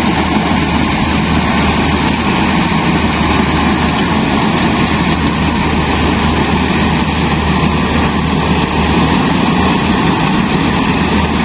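Yanmar AW70 combine harvester's diesel engine running steadily, a constant low hum with the machinery's whirr above it.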